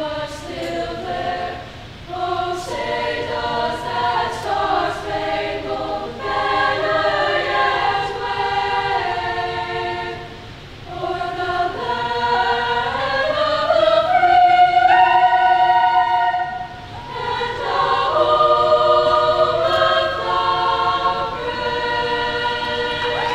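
A choir singing, long held notes in phrases with brief pauses between them.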